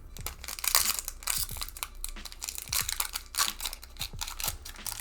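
Plastic Pokémon booster pack wrapper crinkling and tearing in the hands, a dense run of irregular crackles.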